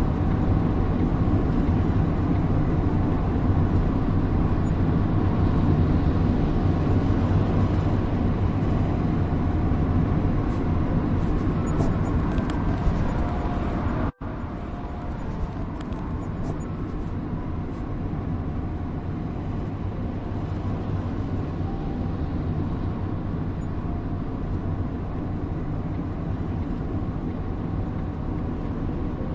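Steady driving noise of a moving car: a constant low engine and road rumble with hiss. About halfway through it cuts out for a split second, then carries on a little quieter.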